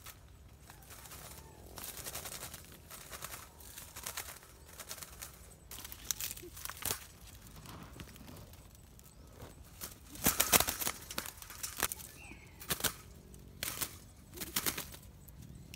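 Irregular rustles and sharp clatters from someone walking over rocky ground through brush and handling a wire-mesh cage trap, with the loudest burst of clattering about ten seconds in.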